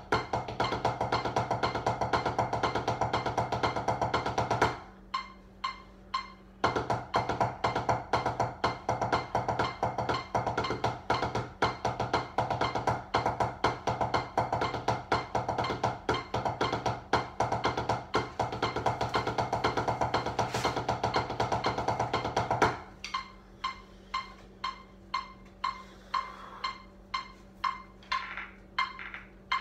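Drumsticks played on a rubber practice pad in fast, dense rolls. About five seconds in the rolls break into separate, spaced strokes for a couple of seconds, then resume. For the last seven seconds or so the playing slows to single taps about two a second.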